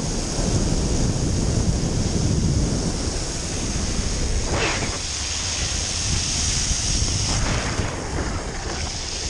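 Wind buffeting a pole-mounted action camera's microphone at downhill speed, over the steady hiss of longboard urethane wheels (Orangatang) rolling through water on wet asphalt.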